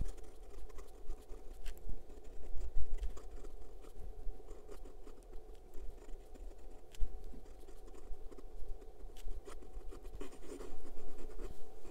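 Majohn S7 fountain pen's steel fine nib writing across lined paper: a faint scratching of pen strokes with many small irregular ticks as letters are formed. It is a nib with a lot of drag, or feedback, that borders on scratchiness.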